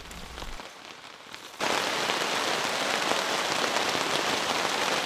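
Rain falling steadily, faint at first, then suddenly much louder about a second and a half in.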